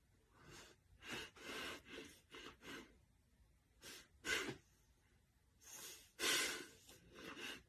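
A series of short, irregular breathy puffs of breath, about a dozen, coming in clusters.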